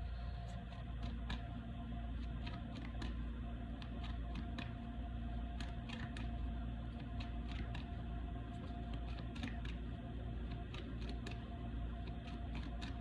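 Tarot cards being shuffled and handled: irregular light clicks and snaps over a steady low hum.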